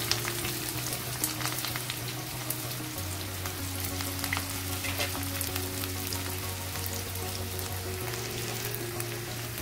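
Chopped onions frying in hot cooking oil in a kadhai: a steady sizzling hiss with fine crackles, as they have just gone into the oil.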